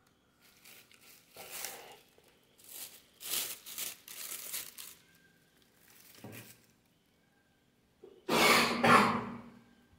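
Clear plastic packaging bags rustling and crinkling in irregular bursts as the wrapped metal stand is handled, with the loudest rustle about eight seconds in as it is laid back on the table.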